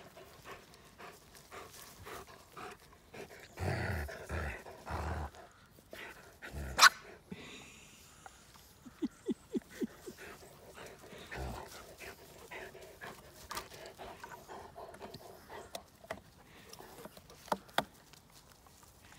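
Large dog gnawing on a thick branch: scattered wet crunches and wood cracks, with one loud sharp crack about seven seconds in.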